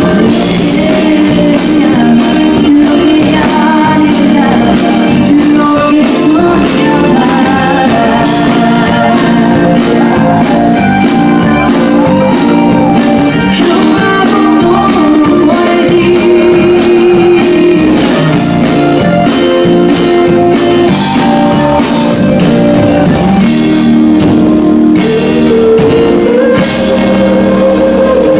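Live Tejano band playing loudly through a PA, with a singer, button accordion and electric guitars over a steady drum beat.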